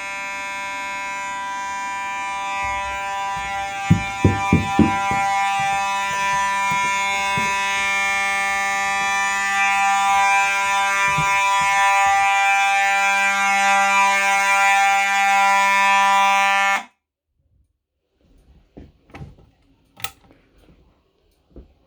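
Fire alarm horn sounding one steady, buzzy continuous tone, with a few knocks about four seconds in; the horn cuts off suddenly well before the end.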